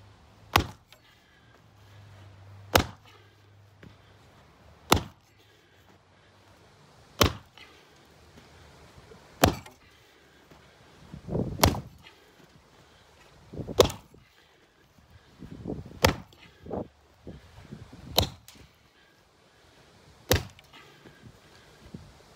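Axe chopping into an old weathered timber beam: a steady series of sharp strikes about every two seconds, around ten in all, with softer scuffing between some of them.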